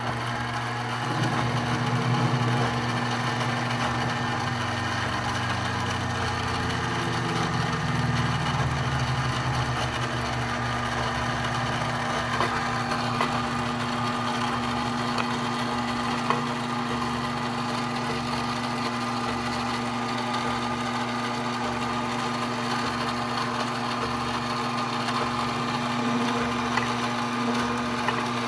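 Mini lathe running: a steady motor hum whose lowest part wavers over the first several seconds, then holds even, with a few faint clicks later on.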